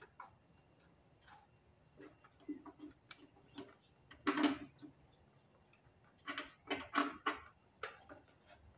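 Small metallic clicks and taps as wing nuts are turned off the welder's polarity terminals and the lead wires are handled. There is a louder clatter about four seconds in and a run of several more between six and seven seconds.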